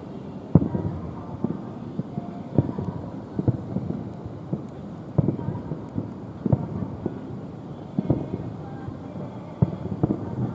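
Aerial fireworks shells bursting in a string of booms, roughly one a second, each a short sharp bang.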